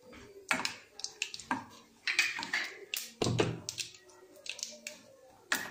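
Tempering spices (mustard seeds, urad dal, dried red chillies, curry leaves) crackling in hot oil in a metal kadai, with a metal ladle scraping and knocking against the pan. Irregular sharp pops and clinks, the busiest stretch about two to three and a half seconds in.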